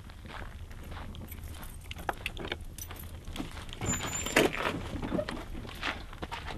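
A converted city transit bus's front folding door being handled and pulled open: clicks and rattles of the door and its latch, loudest about four seconds in, with a short high squeak at that moment.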